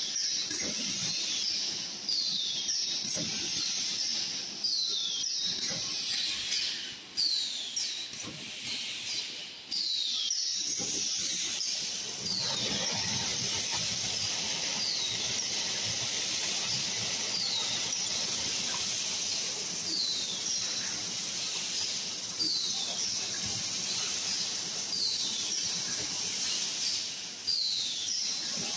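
Chicken nugget forming and coating line running: a steady hiss with short, high, falling squeaks every second or two.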